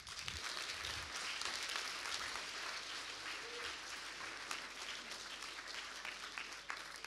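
Audience applauding: many people clapping steadily, the applause tapering off near the end.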